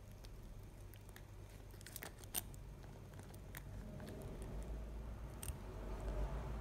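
Puppy chewing and squirming with a rubber toy on a blanket: faint scattered clicks from teeth and collar hardware, over soft rustling that grows in the second half.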